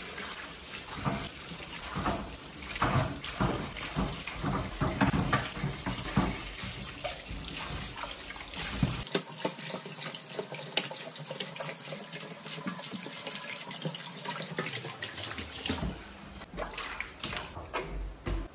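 Kitchen tap running into a stainless-steel sink over fruit being rinsed, water splashing as the fruit is rubbed under the stream, with frequent knocks and clatter of fruit against the sink.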